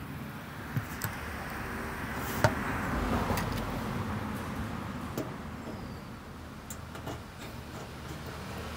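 Scattered sharp clicks and taps of hands and a screwdriver working at a screw terminal block on an air conditioner's sheet-metal blower housing, the loudest about two and a half seconds in, over a background noise that swells and then fades over the first few seconds.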